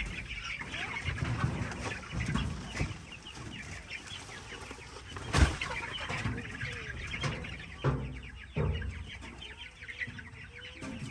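Chickens clucking, with many short, high chicks' peeps. A single sharp knock about five seconds in stands out above them.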